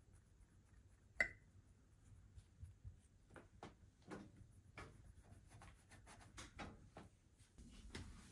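Kitchen knife cutting a slice of soft white bread on a ceramic plate: one sharp clink about a second in, then a run of soft scraping strokes as the blade works through the bread. Faint overall.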